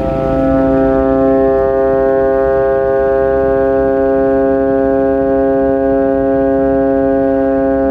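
A set of thirteen Vietnamese 'bò' kite flutes (sáo bò, 55 mm) sounding together in the wind: a steady, many-toned held chord. The tones settle in just at the start and then hold without a break.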